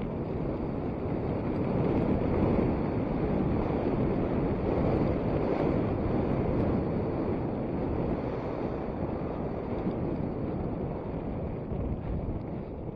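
Wind buffeting the microphone of a camera riding along on a moving mountain bike: a steady rushing noise that swells about two seconds in and eases off near the end.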